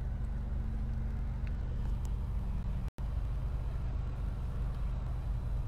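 Steady low hum of a car's engine and road noise, heard from inside the cabin, with a momentary drop-out about halfway.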